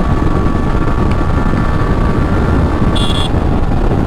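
Wind and road noise on a moving motorcycle with steady engine tones running under it. A short high beep comes about three seconds in.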